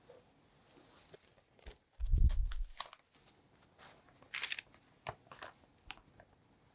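Parchment baking paper rustling and crinkling as a baked sponge cake sheet is turned over onto a fresh sheet, with a dull thump about two seconds in as the sponge is set down. Later comes a short crackly rustle and a few light paper crackles as the baking paper is handled and peeled from the sponge.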